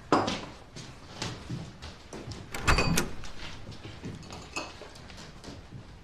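Takeout containers, lids and dishes being handled and set down on a dining table: scattered clicks and knocks, with a sharper clatter and a brief ringing clink about two and a half to three seconds in.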